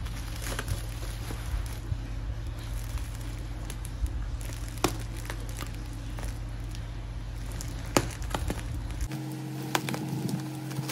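Scissors cutting into a plastic-wrapped bubble-wrap parcel, with the crinkling and crackling of the plastic and scattered sharp clicks. A steady low hum runs underneath.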